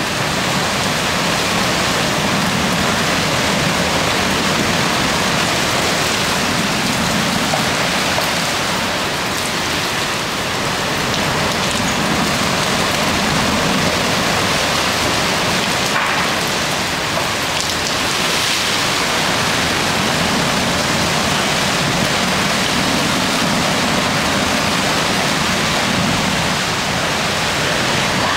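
Heavy hurricane rain and wind, a loud, steady rushing hiss.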